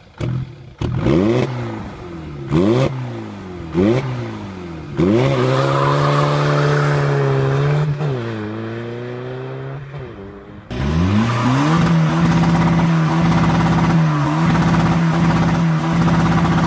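Straight-piped VW Polo TDI diesel engine revved in four quick blips, then held at high revs as the car pulls away, fading as it goes. After an abrupt change, a second straight-piped diesel in an Alfa Romeo 147 is held at high revs with three brief dips.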